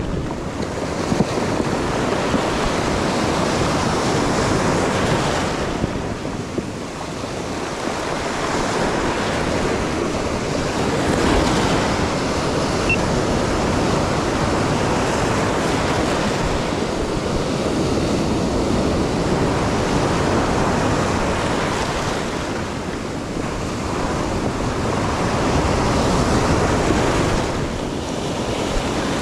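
Ocean surf breaking and washing up a stony beach, a continuous rushing that swells and ebbs as each wave comes in.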